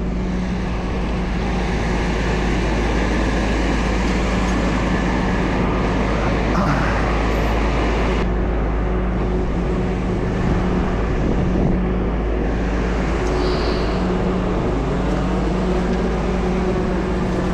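Tow truck's engine running at a steady speed close by, a constant hum over a low rumble, as it works to winch a crashed box truck free.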